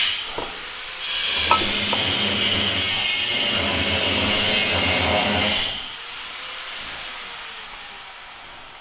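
A power tool running steadily for about five seconds, starting about a second in and then stopping.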